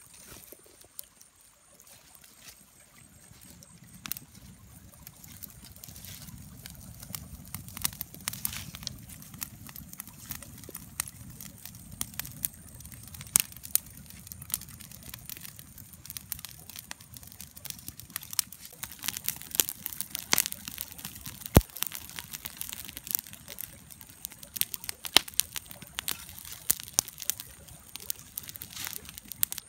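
Small fire of dry leaves and twigs crackling with many sharp, irregular pops and one loud snap about two-thirds of the way through, over a low rush of flame that builds a few seconds in and fades later on.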